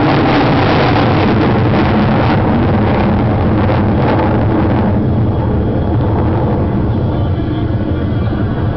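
Loud jet noise from a USAF Thunderbirds F-16 climbing away overhead. The hiss in the upper range fades about five seconds in, leaving a lower rumble as the jet draws off.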